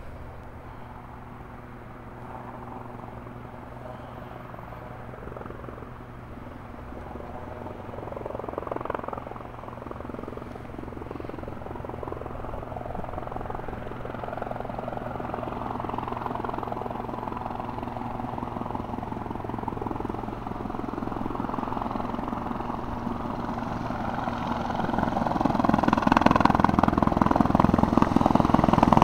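Air ambulance helicopter approaching to land, its rotor and turbine sound growing steadily louder as it descends toward the listener, with the blade chop strongest in the last few seconds.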